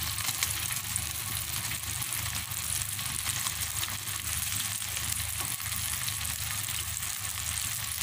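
Thin sauce sizzling and bubbling in a hot wok: a steady, even crackle.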